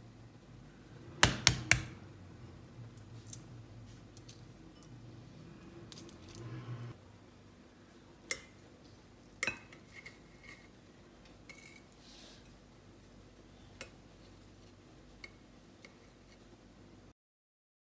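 Small hard objects clinking and clicking as they are handled: three sharp clinks in quick succession about a second in, then a few scattered single clicks over a low background hum. The sound cuts out to silence near the end.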